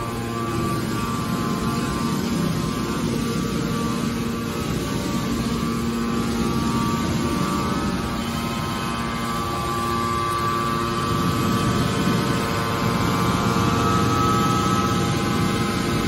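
Large hydraulic scrap-metal baler running: a steady machine hum with a thin high whine that grows stronger and slightly higher in the last few seconds.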